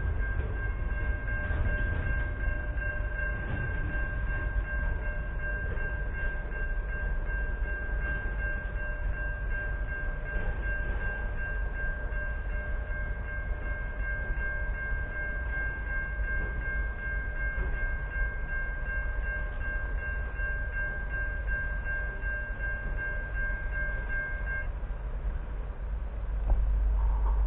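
Level crossing warning bells ringing steadily as the tail of a container freight train runs away down the line. The bells stop suddenly about three-quarters of the way through. A low wind rumble on the microphone runs throughout and swells near the end.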